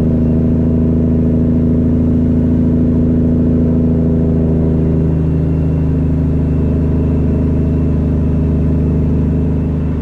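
Semi-truck diesel engine running at a steady pull, a constant drone heard from inside the cab, easing off slightly near the end.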